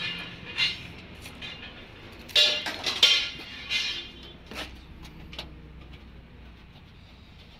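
A large lining sheet being handled, rustling and crackling in several short bursts, loudest about two and a half to three seconds in.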